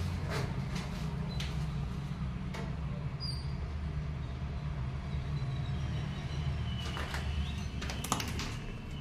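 Footsteps and scuffs on a debris-strewn concrete floor, heard as scattered sharp clicks that come thicker near the end, over a steady low rumble. Faint bird chirps come from outside about two-thirds of the way in.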